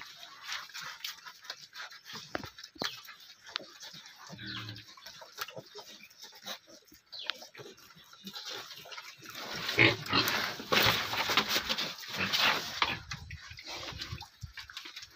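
Piglets about ten days old suckling at a sow: pig grunts and snuffling with scattered short clicks, a low grunt about four seconds in, and a louder, noisier stretch of piglet sounds from about two-thirds of the way through until near the end.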